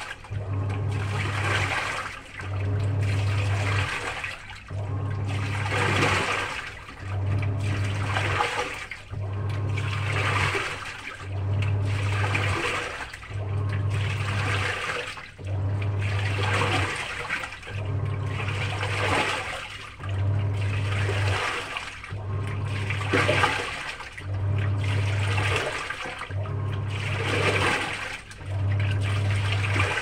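Samsung washing machine on its wash stage: the motor hums in strokes of about a second and a half with short pauses, about one every two seconds, and water sloshes through the clothes with each stroke.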